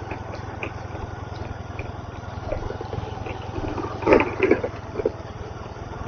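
Motorcycle engine running at low speed with a steady low hum, with a short, louder rough sound about four seconds in.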